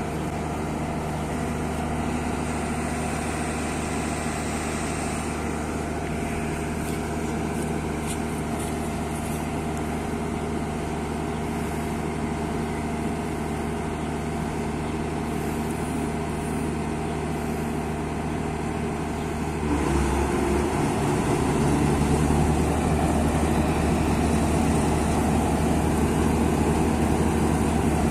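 Claas Mega 208 combine harvester running steadily during a test after repair. About two-thirds of the way through, the sound steps up to a louder, fuller run that holds to the end.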